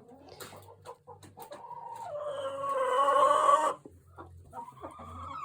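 Backyard hens clucking, with one long drawn-out call about two seconds in that grows louder and breaks off suddenly, and another call starting near the end.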